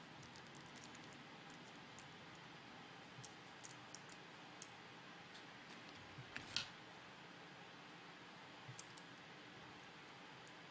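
Faint scattered clicks and light scrapes of a small screwdriver and tiny screws being worked into a plastic servo horn by hand, with one louder click about six and a half seconds in.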